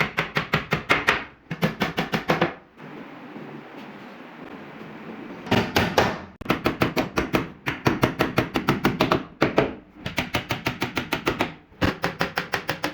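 Rapid runs of sharp knocks, about nine a second, in bursts of one to three seconds, with a quieter pause of a few seconds near the middle.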